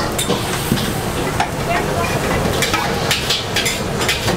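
Pad thai noodles sizzling in a hot wok while a metal spatula stirs them, with repeated scrapes and clinks of the spatula against the pan.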